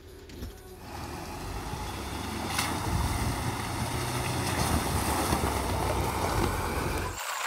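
Land Rover Discovery 3 driving slowly through a shallow stream, its engine running low with water splashing around the wheels. The sound builds from about a second in and cuts off abruptly near the end.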